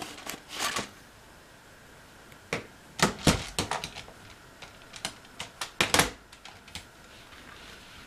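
Hard plastic clicks and knocks from a Makita cordless stick vacuum being handled with its motor off, as the extension pipe is pulled off the cyclone attachment to clear a clog of hair. There is a quick cluster of sharp knocks about three seconds in and another about six seconds in.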